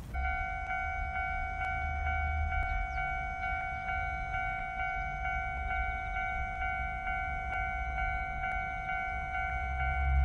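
Japanese level-crossing warning bell ringing electronically: a repeated ringing tone, about two strikes a second. Underneath is a low rumble that grows louder near the end.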